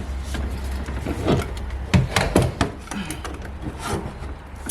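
A small piece of wood being pushed and worked into place by hand: irregular wooden knocks and clicks, with rubbing and short squeaks of wood against wood.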